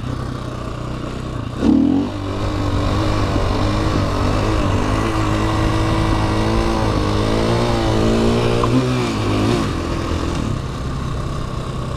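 Supermoto dirt bike engine revving up sharply about two seconds in and held at high revs, wavering with the throttle, through a wheelie. It eases back to a lower, steady pitch near the end.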